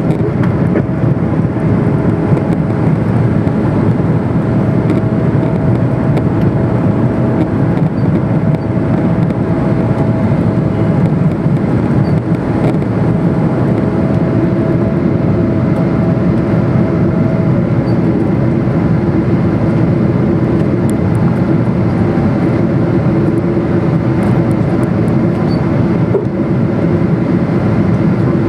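Boeing 777 with GE90 engines climbing out after takeoff, heard from inside the passenger cabin: steady, loud engine and airflow noise. A faint steady hum in it gives way to a lower one about halfway through.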